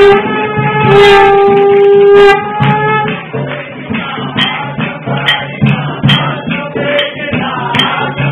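A conch shell blown in two long, steady notes with a brief break for breath between them, the second note ending a little after two seconds in. Then group singing or chanting, punctuated by sharp strikes about twice a second.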